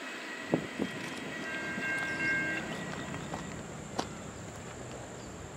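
Distant diesel locomotive air horn sounding one short chord, about a second long, about a second and a half in. A few sharp knocks come near the start and again around four seconds, the first of them the loudest sound.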